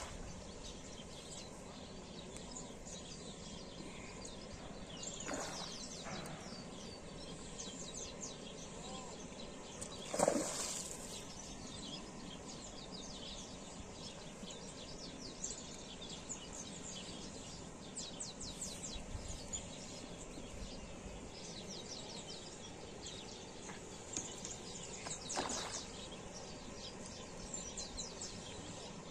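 Quiet outdoor ambience: scattered bird chirps over a steady low hiss. Brief louder noises come about five, ten and twenty-five seconds in, the one about ten seconds in being the loudest.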